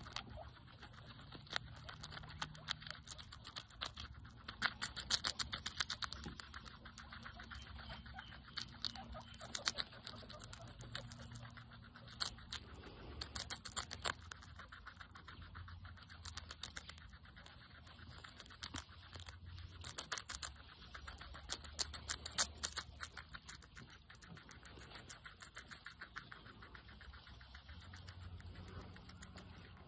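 A guinea pig chewing crisp lettuce leaves close up: rapid crunching clicks that come in bursts with short pauses between.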